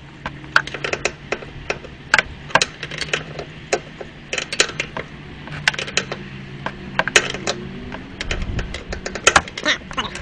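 Sharp metallic clicks in quick, irregular runs from a tool working the oil filter loose on a 2003 Honda VTX 1300, with a faint steady low hum underneath that fades near the end.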